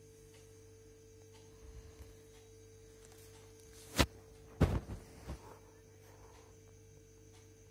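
A steady low electrical hum, broken about four seconds in by one sharp click and then a quick cluster of three or four dull knocks.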